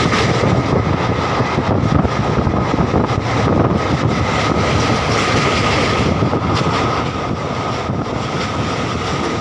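Train running over a steel truss railway bridge, heard from aboard: a steady, loud noise of wheels on rails with a thin, steady whine above it.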